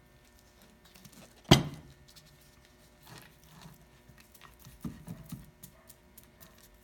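A single sharp knock on the workbench about a second and a half in, then a foam brush scrubbing wood glue across a mahogany board, with a few lighter knocks.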